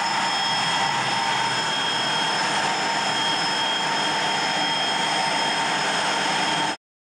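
Steady jet engine noise with several high, even whining tones over a rushing roar, cutting off abruptly near the end.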